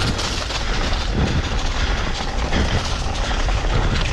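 Mountain bike rolling fast over dry, rough singletrack: a steady rush of tyre noise with the bike rattling continuously over the bumps.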